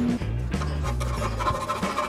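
Background music with a steady bass line. From about half a second in, a hand file rasps back and forth across the knife's metal bolster where it meets the deer antler handle.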